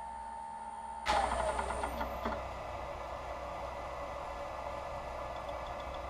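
Wood lathe spinning an oak pen blank during friction polishing: a steady motor whine, then about a second in a sudden loud rattle with a few knocks as the whine drops away, settling into a steady rushing run.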